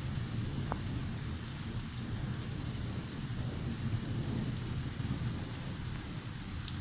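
Steady heavy rain with a continual low roll of thunder underneath, and a few sharp drip ticks.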